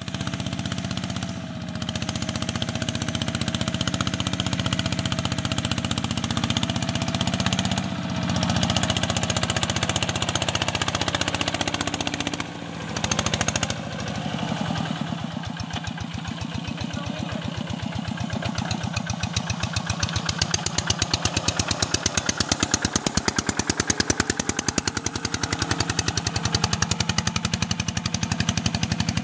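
Walking tractor's single-cylinder diesel engine running loud under load as it pulls a disc plough through the soil, with a rapid, even chugging beat.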